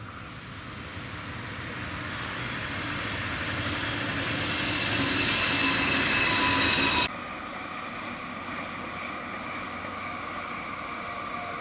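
Double-deck electric passenger train running past: rolling noise that swells steadily as it nears, with high steady whines and squeals over it. About seven seconds in the sound cuts off abruptly and gives way to a second, more distant train running steadily, with a fainter whine.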